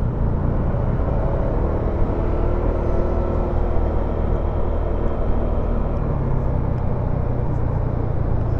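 Honda SH150i scooter's single-cylinder engine running steadily under way, with road and wind noise.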